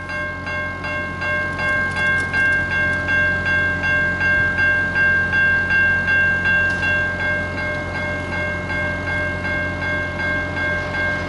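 Grade crossing warning bell ringing steadily, about two to three strokes a second, signalling that the crossing is activated for an approaching train.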